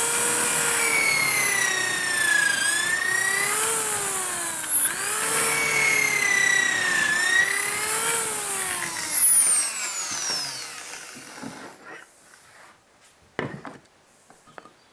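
Corded electric drill with a stepped pocket-hole bit boring two pocket holes through a Kreg jig's hardened steel guides into a board: a loud motor whine whose pitch sags as the bit loads up and recovers, twice, then winds down about ten seconds in. A few light clicks follow near the end as the jig is handled.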